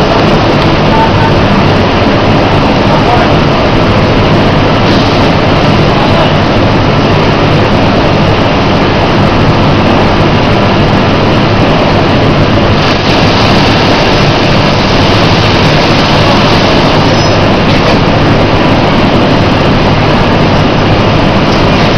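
Feed mill machinery running around a feed bagging machine: a loud, steady din with a low hum underneath.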